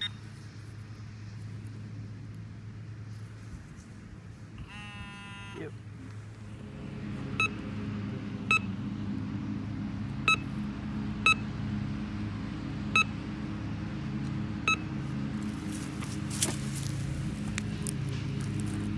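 Metal detector giving six short, high beeps as the search coil is swept over a freshly dug hole, over a steady low hum.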